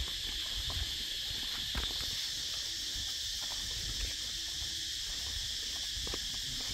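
Steady, high-pitched chorus of insects in the surrounding trees, with faint scattered footsteps on the dirt path.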